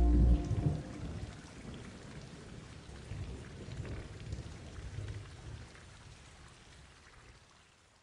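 Outro music cuts off just after the start, leaving a low rumbling, crackling noise that slowly fades away.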